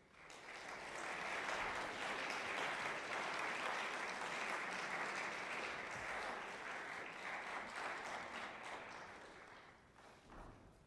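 Audience applauding after a choral piece. The applause starts suddenly, builds within about a second, holds steady, then tapers off near the end.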